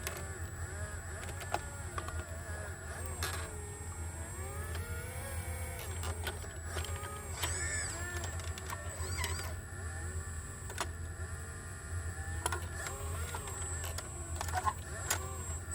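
Sumitomo SH120A3 hydraulic excavator at work, its diesel engine running steadily under a hydraulic whine that rises and falls in pitch as the arm and bucket are worked. There are a few short knocks.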